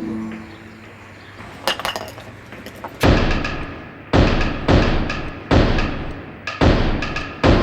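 Noise-music track: the music fades out into a lull with a few faint clicks. Then come about six heavy, irregularly spaced percussive hits, each sharp at the attack with a short ringing decay.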